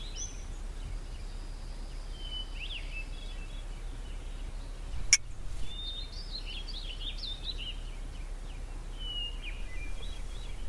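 Open-air ambience: a steady low rumble with small birds twittering on and off in quick high chirps, and one sharp click about five seconds in.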